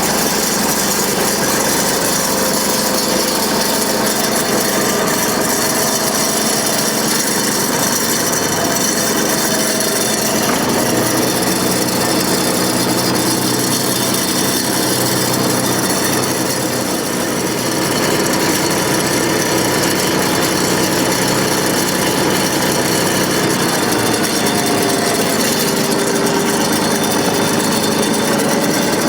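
Tractor engine running steadily while pushing and spreading dirt with a rear blade, its pitch shifting now and then as throttle and load change.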